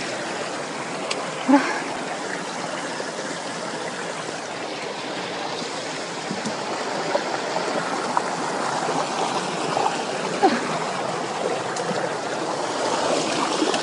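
Mountain stream rushing over boulders: a steady wash of water that grows a little louder in the second half.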